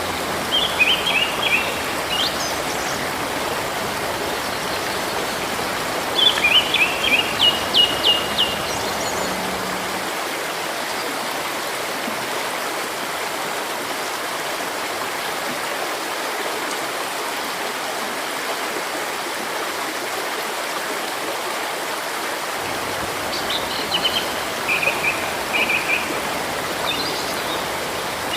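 River water running steadily, with a bird singing short phrases of quick, high chirping notes three times: near the start, about six seconds in, and near the end.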